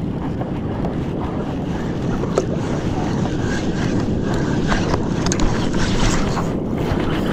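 Wind buffeting the microphone in a steady low rumble, with sea water lapping around a kayak.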